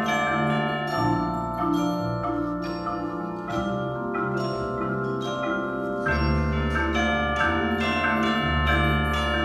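Percussion ensemble playing on marimbas and other mallet instruments: quick repeated struck notes ringing over held low bass notes that change every second or two.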